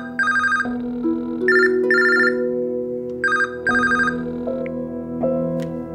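Telephone ringing in short double trills, ring-ring, three times about 1.7 seconds apart, over soft sustained background music.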